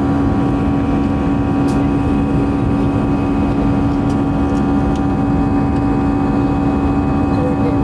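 Jet airliner cabin noise: the turbofan engines and airflow make a steady drone with a constant low hum.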